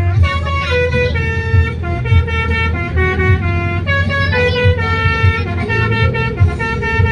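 Telolet multi-tone bus horn playing a melody, its notes held and stepping to new pitches every half second or so, with a low rumble underneath.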